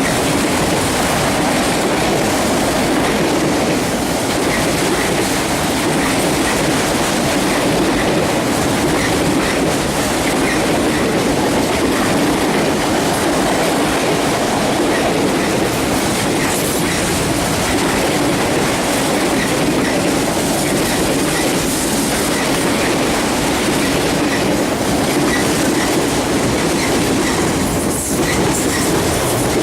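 Fast CSX freight train of autorack cars passing, a steady loud rolling rumble of steel wheels on rail with a faint, regular clicking.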